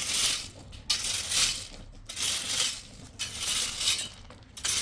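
Repeated scratchy scraping strokes, about one a second.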